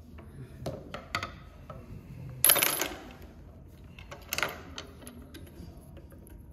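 Metal clicks and clinks as a screwdriver and small metal parts are handled at a sewing machine's bobbin winder. There are a few light clicks, the loudest a ringing metallic clink about two and a half seconds in and another about four and a half seconds in.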